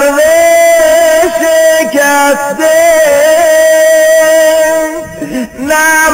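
A man singing a slow devotional lament, holding long notes with a wavering, ornamented pitch. The line breaks off briefly about two and a half seconds in and again near the end.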